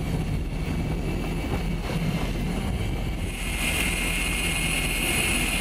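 Low wind and boat rumble at sea. About three seconds in, a big fishing reel starts winding in line with a steady high whine.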